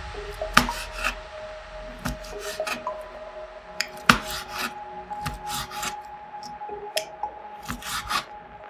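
Kitchen knife sawing through thick slime and scraping the plastic mat beneath: bursts of short rasping strokes, with a few sharp clicks.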